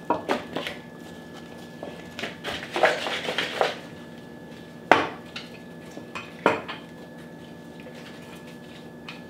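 Kitchen utensils knocking and clattering on a countertop and cutting board as pie dough is rolled out with a wooden rolling pin and apples are sliced. A few quick knocks come at the start, a busier clatter follows about two to four seconds in, and two single louder clunks come about five and six and a half seconds in, over a faint steady hum.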